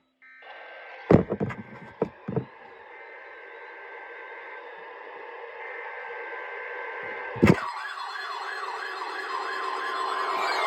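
A siren yelping up and down about three times a second, clearest after a sharp thump about seven and a half seconds in and growing steadily louder, over a faint steady hiss. A few knocks come between about one and two and a half seconds in.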